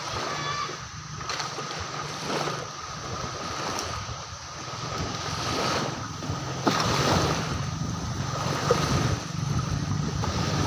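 Beach ambience: a steady wash of surf and wind noise on the microphone, with a steady low hum underneath.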